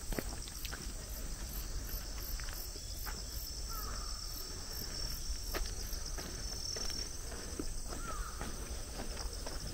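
Insects singing steadily: a continuous high buzz with a fast, regular pulsing chirp above it. Faint footsteps of someone walking on a paved path.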